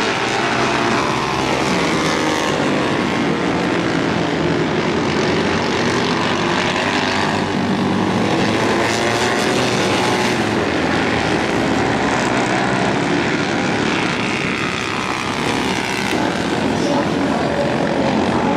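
Vintage flat-track racing motorcycle engines running hard around a dirt oval, their pitch rising and falling as the bikes accelerate and back off.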